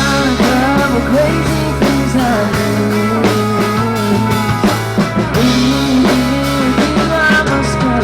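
Live country-rock band playing an instrumental passage: a melodic lead line over steady bass and regular drum hits.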